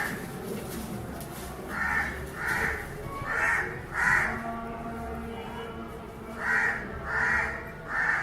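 Crow cawing in runs of two to four short calls, about eight caws in all.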